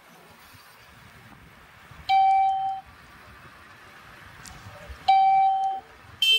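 Electronic beeps: two steady, even beeps of under a second each, three seconds apart, then a short, harsher beep near the end, over a low hiss of moving along the road.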